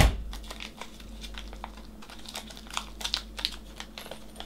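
Light clicks and ticks of small plastic and metal RC kit parts and pliers being handled on a worktable while a small spring and cap are fitted by hand, with one sharp click right at the start.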